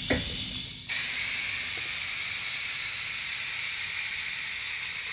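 Pneumatic vacuum fluid extractor hissing steadily as compressed air drives it, drawing old brake fluid out of a master cylinder reservoir. The hiss starts suddenly about a second in.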